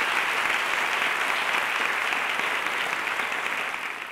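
Audience applauding, a dense steady clapping that starts to fade near the end.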